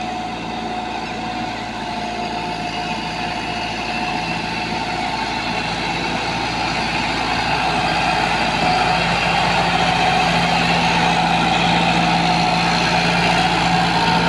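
Combine harvester engine running steadily, getting gradually louder.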